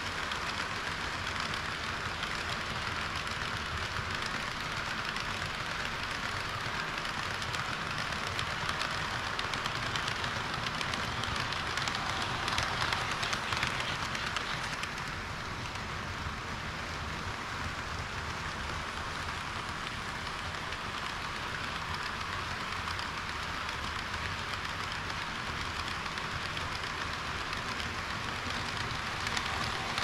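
HO-scale model trains rolling along sectional track: a steady metallic rolling hiss with fine clicking from the wheels. It eases off about halfway through, once the long tank-car train has passed, and grows louder again near the end as the red diesel railcars pass close.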